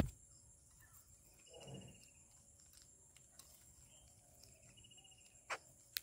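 Steady high insect shrilling, with a sharp tap at the start and another near the end as babblers move about on the ledge right by the microphone, and a couple of faint trilled bird chirps in between.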